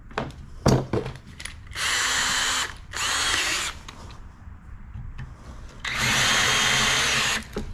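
Cordless drill running in three short bursts, the last and longest about six seconds in, as a 5/16-inch bit drills out the corroded zinc left in a brass pencil anode holder.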